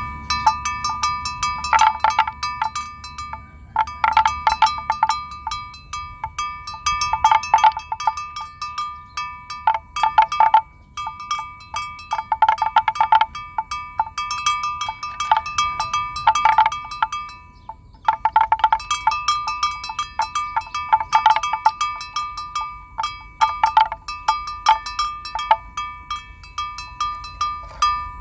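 Livestock bells clanking irregularly, several at once, as a herd of water buffalo moves about grazing, with a few short pauses.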